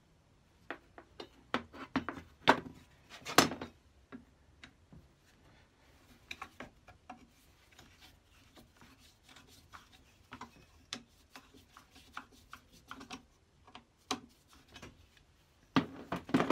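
Clicks, taps and scrapes of a Record No. 5 hand plane's steel and iron parts being taken apart, with a screwdriver turning out a screw. There are sharper knocks about two to three seconds in, and again near the end.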